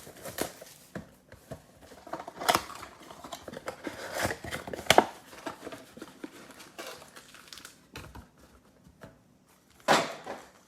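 A sealed trading-card mega box being opened by hand: plastic wrap and foil packs crinkling, with a few sharp tearing rips.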